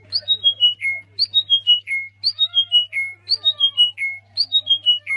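A bird singing a short phrase of five or six clear whistled notes that step down in pitch, repeated almost identically about once a second, with fainter chirps beneath and a steady low electrical hum.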